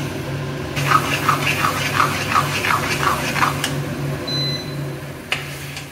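Spatula stirring and scraping a thick grated bottle gourd and mawa mixture in a kadhai, in a run of strokes about three a second for a few seconds, over a steady low hum.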